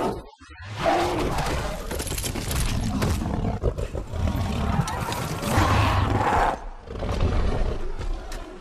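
A fell beast's roars and snarls as a film sound effect, over a low rumble. The roars swell about a second in and again, loudest, past the middle.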